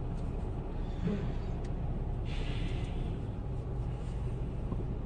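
Steady low rumble of a car heard from inside the cabin, with a brief soft hiss about two and a half seconds in.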